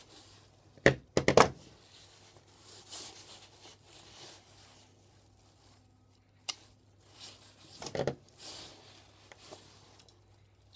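Sharp cracks and knocks of a plastic electrical plug being broken apart with mole grips to free its brass pins, in two short clusters about a second in and near eight seconds, with quieter handling and rustling between.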